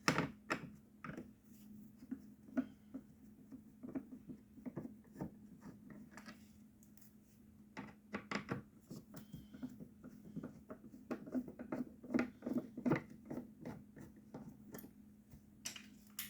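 Irregular light clicks, taps and scratches of hands working a small plastic portable speaker apart and lifting out its circuit board.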